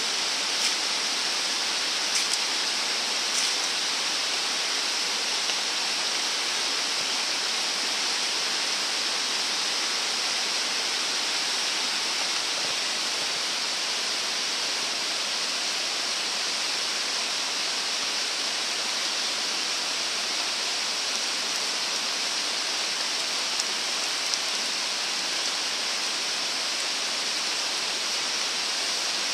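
Steady rain falling, an even hiss with a few faint clicks in the first few seconds.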